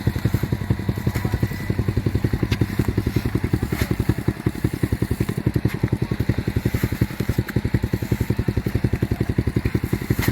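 Small engine running steadily at an even speed, with a fast, regular chugging beat of about ten pulses a second and a few faint clicks over it.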